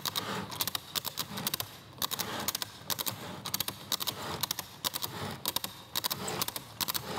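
Camera shutters clicking in quick clusters of two to four, recurring every half second or so.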